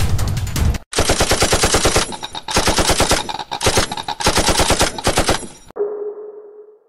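Paintball marker firing in rapid strings, about a dozen shots a second, in three long bursts with short breaks between. It is followed near the end by a single ringing electronic ping that dies away.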